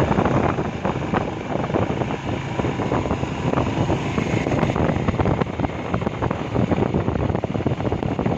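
Royal Enfield motorcycle running on the move, with heavy wind buffeting and crackling on the microphone.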